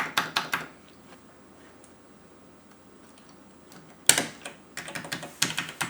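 Amiga keyboard keys clacking under quick presses in a burst of rapid clicks. About three seconds of quiet follow, then a sharp click about four seconds in and another quick run of key clacks. The keys carry newly fitted keycaps.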